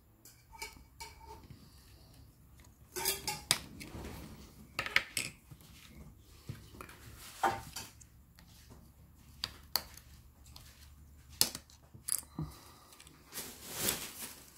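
Irregular sharp clicks, taps and scrapes of a plastic prying pick and the snap-fit plastic NFC cover against a Galaxy A8 smartphone's frame as the cover is pried off, with a longer scrape near the end.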